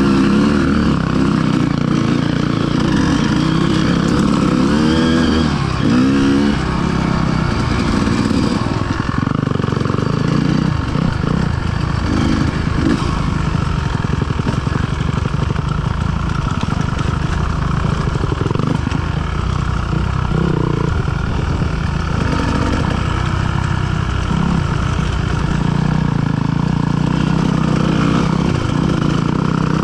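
Enduro motorcycle engine revving up and down as it is ridden off-road, its pitch rising and falling several times in the first few seconds. After that it runs more roughly, with many knocks and rattles from the bike over rough ground.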